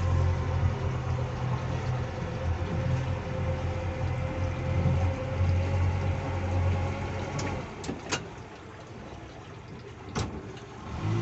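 Tohatsu 80 outboard motor driving a speedboat at speed: a steady engine drone over rushing water. It goes quieter about eight seconds in, with a few sharp clicks, then comes back up near the end.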